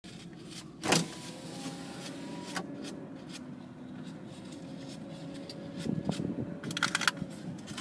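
Car cabin noise while driving slowly: a steady low rumble of engine and tyres. A sharp knock sounds about a second in, and a quick run of clicks comes near the end.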